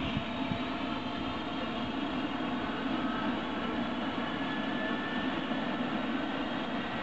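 Eurocopter EC135 helicopter running on the ground during start-up, its twin turbine engines whining steadily under the rush of the turning main rotor.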